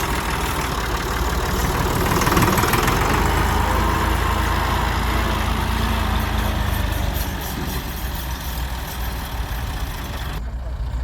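Heavy diesel machinery engine running steadily, a little louder a couple of seconds in and easing off after about seven seconds.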